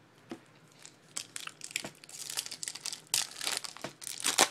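Foil trading-card pack wrapper crinkling and tearing as it is opened by hand, in irregular crackles that begin about a second in and are loudest near the end.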